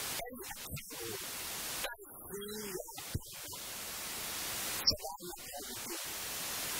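A man speaking in a few short phrases separated by long pauses, over a strong steady hiss that slowly swells during each pause.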